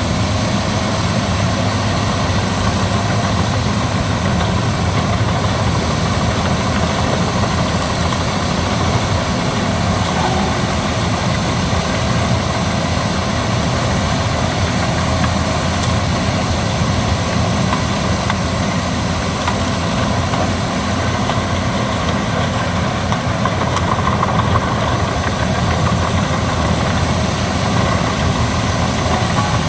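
Albach Diamant 2000 wood chipper running steadily, its heavy engine and chipping drum giving a loud, even drone.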